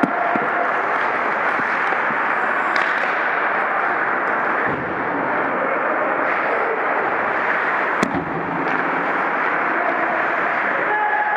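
Ice hockey rink sound at ice level: a steady rushing noise of skating and the arena. Sharp cracks of sticks and puck come about three seconds in, and a louder one about eight seconds in.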